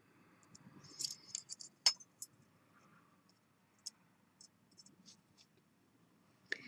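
Faint, scattered light clicks and clinks of small silver pieces and jeweller's tools being handled on a bench. There is a quick cluster about a second in and one sharper click near two seconds.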